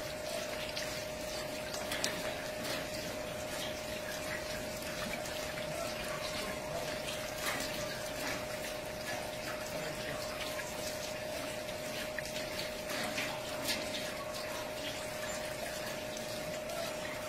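Water pouring and splashing from cans on a slowly turning can wheel: a steady hiss of running water with scattered small clicks and drips. A steady tone sits under it throughout.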